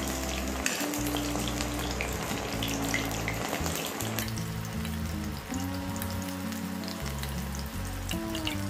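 Chicken pieces deep-frying in hot groundnut oil in a cast-iron kadai: a steady sizzle with fine crackling pops. Soft background music with held notes plays underneath.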